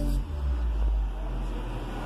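Deep, low bass rumble from a car audio system's Pioneer subwoofers, strongest for about the first second and then fading, with the rest of the music gone.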